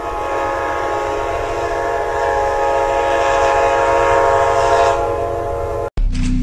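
Locomotive air horn held in one long, steady blast that sounds as a chord of several notes, over a low rumble. It cuts off abruptly near the end, and a thumping music beat starts.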